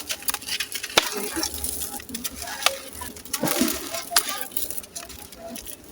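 Chunks of gritty sand-cement crumbling and crunching: a run of sharp crackles and gritty clicks, with a few louder cracks about a second in and in the middle.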